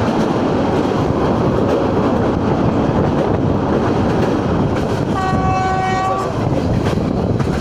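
Running noise of a fast Indian passenger train heard at an open coach doorway: a steady rumble of wheels on the rails with rushing air. About five seconds in, the train's horn sounds once for about a second.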